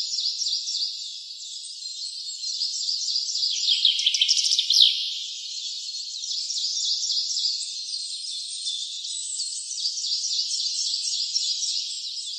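A dense chorus of high-pitched animal chirps: many short, quick notes overlapping continuously, most falling slightly in pitch, with nothing low underneath. It grows louder around four to five seconds in, where one brighter falling sweep stands out.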